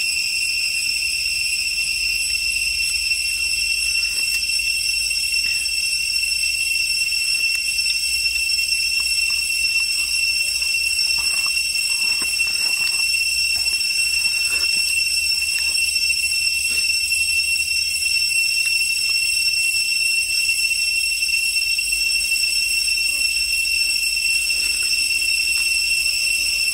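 Cicadas droning in a steady, unbroken high-pitched whine, with a few faint clicks around the middle.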